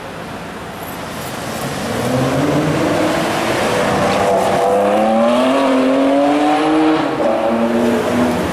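Ferrari 599's V12 engine accelerating hard through the gears. The pitch climbs, drops once at an upshift about halfway through, climbs again, then eases near the end.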